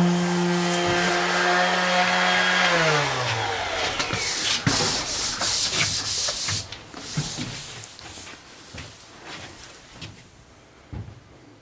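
A random orbital sander runs steadily against a PVC cabinet panel, scuffing the surface so the glue will bite. About three seconds in it is switched off and its hum falls in pitch as it spins down. Then come a couple of seconds of quick scrubbing strokes from hand-sanding the panel, fading to light rubbing.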